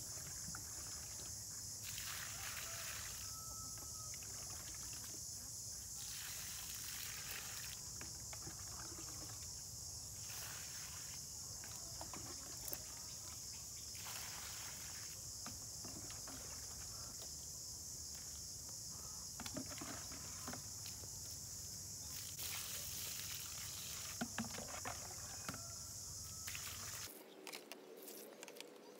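Water poured from a plastic scoop onto garden soil, in repeated pours and splashes, with the scoop dipped and sloshed in a plastic bucket between them. A steady high-pitched hiss runs underneath and cuts off near the end.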